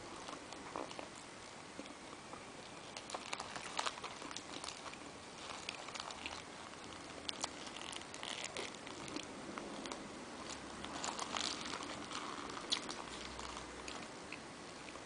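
A person chewing a mouthful of bread roll close to the microphone: irregular wet mouth clicks and smacks, busiest from a few seconds in until near the end, with the paper napkin around the food crinkling.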